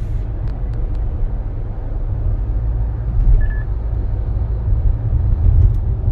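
Steady low rumble of road and engine noise inside the cabin of a SsangYong Torres, a 1.5-litre turbo petrol SUV, driving along.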